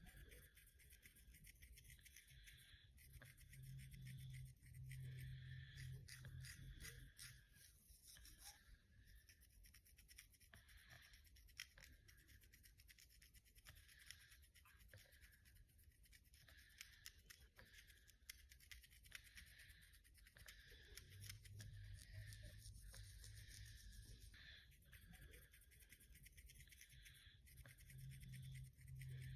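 Faint, quick scratching of fingernails through hair on a scalp with dandruff. A low droning snore comes in about four seconds in, again around twenty-one seconds, and near the end.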